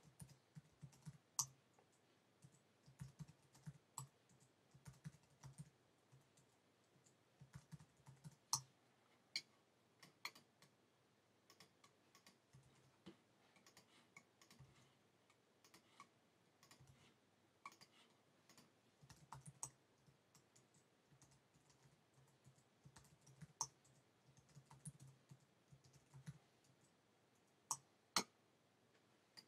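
Faint computer keyboard typing: scattered, irregular keystrokes as words are entered into spreadsheet cells.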